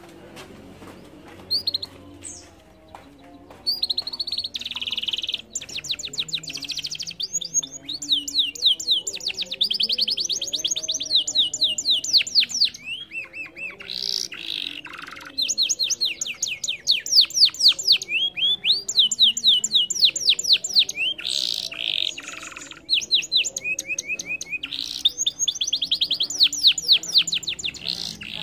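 Domestic canary singing: a few single chirps, then from a few seconds in a long rolling song of fast, high trills in several phrases with short breaks.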